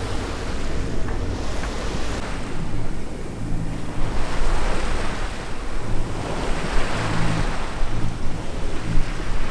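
Water rushing along the hull of a sailing yacht under way, with wind buffeting the microphone; the rush swells and fades several times.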